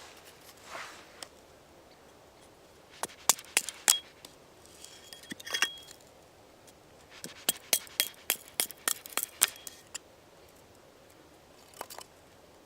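Dry kindling wood being split and cracked with an axe: clusters of sharp cracks and clicks, some with a faint metallic ring, in two runs about three and eight seconds in.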